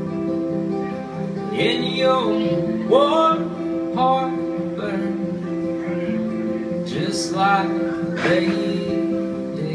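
Live acoustic folk music: two strummed acoustic guitars holding ringing chords, with a violin playing gliding, wavering melody notes over them.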